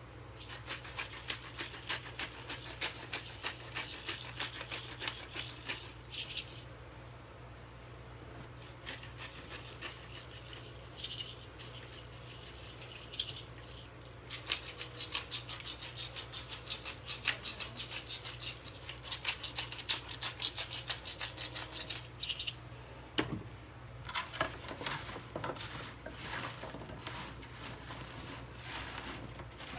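Rapid dry rattling and clicking with a few short hissing bursts. Near the end, pieces of cut raw butternut squash, carrot and onion are tossed and shuffled by hand on a metal sheet pan.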